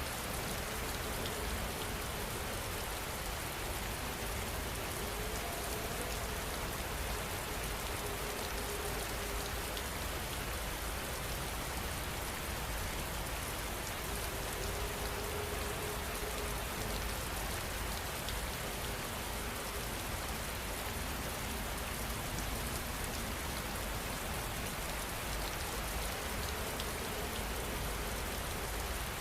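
Steady rain falling, a dense even patter of raindrops on surfaces.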